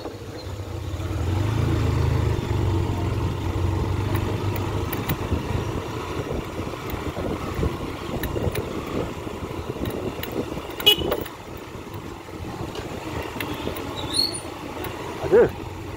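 Road traffic: a motor vehicle passes with a low engine rumble that builds over the first two seconds and fades by about six, then steady traffic noise. A short horn toot sounds near the end.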